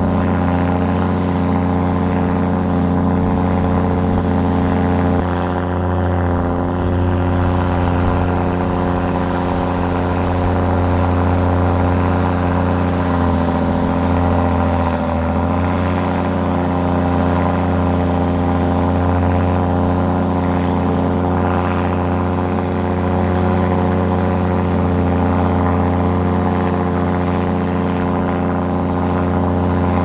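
Heavy construction machine's diesel engine running steadily, its pitch dipping briefly about halfway through.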